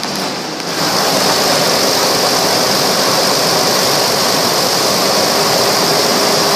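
A 2002 Ford Ranger's 4.0-litre SOHC V6 idling, heard close up in the open engine bay as a steady, hissing whir. It grows louder about a second in and then holds even.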